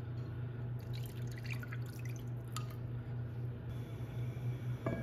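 Kimchi juice poured from a glass bowl into a pot of broth, dripping and splashing, over a low steady hum.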